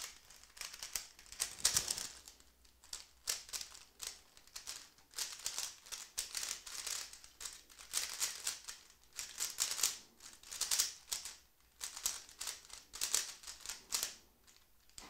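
Plastic Rubik's Cube layers being turned at speed-cubing pace: rapid clacking and clicking in quick flurries of turns with brief pauses between them.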